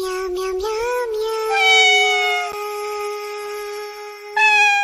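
Meowing voice singing in long, steady held notes, like a cat-voiced novelty song: a few quick gliding meows at the start, then a note held for about three seconds, and a louder one near the end that stops abruptly.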